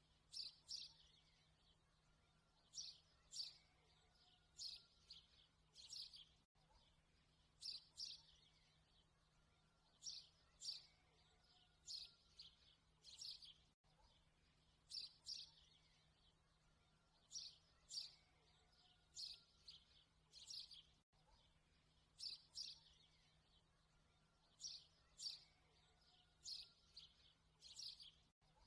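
Faint recording of birds chirping: short high chirps in groups of two to four about every two seconds, repeating as a loop with a brief dropout about every seven seconds.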